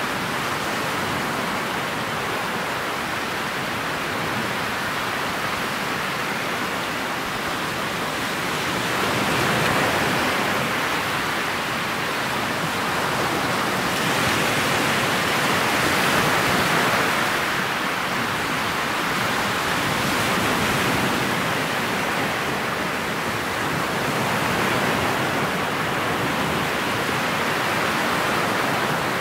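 Motorboat underway: a steady rushing of water along the hull and wind past the bow, swelling and easing a few times.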